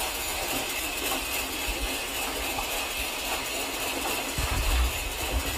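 Vertical sawmill band saw running and cutting through a thick timber beam: a steady hiss with a high ringing tone, and a few heavy low thumps near the end.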